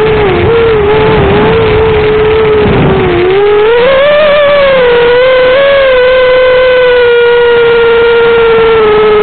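Eachine Racer 250 quadcopter's motors and propellers whining steadily in flight. About three seconds in the pitch rises and then settles slightly lower, and a rumble of wind noise underneath drops away.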